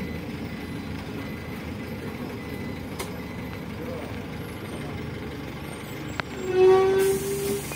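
Inside a PAZ 320414-05 city bus as it draws up to a stop: steady engine and road noise, a click about six seconds in, then a loud steady beep lasting about a second, with a hiss of air starting near the end.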